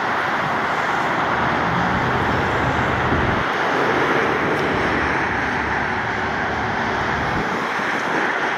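Steady road traffic noise from highway vehicles, with a low rumble that stops abruptly near the end.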